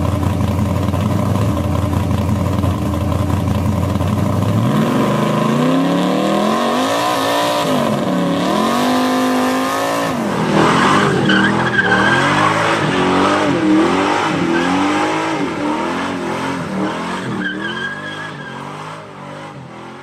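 Car engine idling steadily, then revved up and down over and over in a burnout, with tyre squeal joining in about halfway through. The sound fades near the end.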